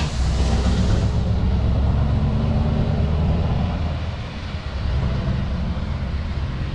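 Scania V8 truck engine pulling away, a deep drone that stays strong while the tyre hiss dies away in the first second. The engine note dips briefly about four and a half seconds in, then carries on.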